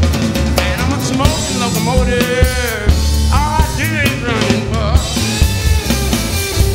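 A live rock band playing, with drum kit, electric bass and acoustic guitar. Over the steady beat, a lead melody bends up and down in pitch.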